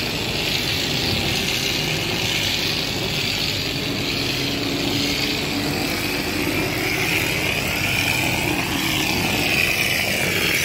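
Compressed-air plaster spray gun hissing steadily as it blasts cement mortar onto a brick wall, the hiss wavering in pitch as the nozzle moves.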